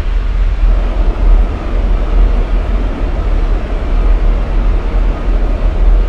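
Rocket engines firing at liftoff: a loud, steady rumble, heaviest in the deep bass.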